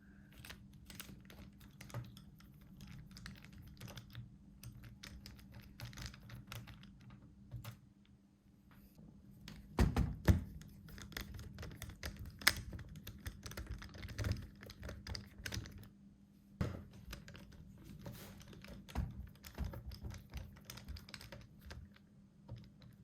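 Irregular small clicks, taps and scrapes of a Phillips screwdriver and fingers working the screws and plastic of a laptop's screen assembly, with a few louder knocks about ten seconds in and later. A faint steady low hum runs underneath.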